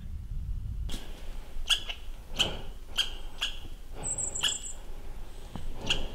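Footsteps crunching over dry ground at a walking pace, about one step every two-thirds of a second, with a brief high-pitched chirp about four seconds in.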